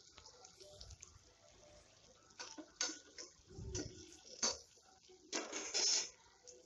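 Perforated steel ladle scraping and clinking against a stainless steel pot while stirring onions, curry leaves and dried chillies as they fry. There are a few sharp knocks and short scrapes, and the longest, loudest scrape comes near the end.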